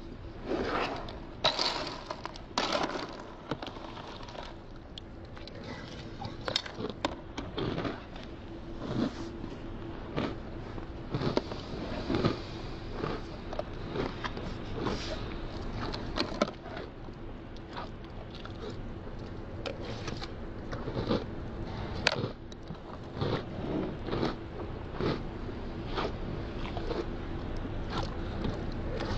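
A person eating cereal from a plastic container: a metal spoon scraping and clicking against the plastic, and crunchy chewing, in irregular clicks and crackles over a faint steady hum.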